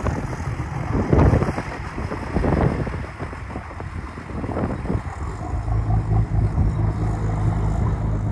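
Aluminium crew boat's engine running as it turns under power, with wind gusting on the microphone. The wind gusts are strongest about a second in and again near 2.5 s; from about five and a half seconds in, a steady low engine hum comes up clearly.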